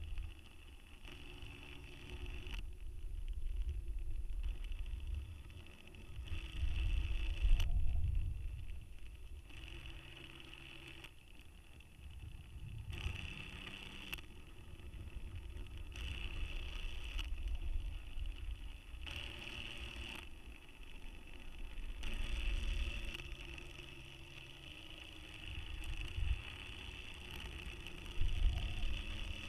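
Small DC motor whining in stretches of one to two seconds, starting and stopping and stepping in pitch as it turns the camera against the payload's spin, over a low, uneven rumble.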